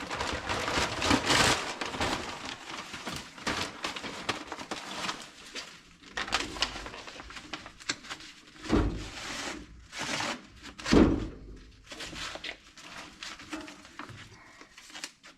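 Hands handling baler twine in the baler's twine box: irregular rustling and crackling, with two dull thumps about nine and eleven seconds in.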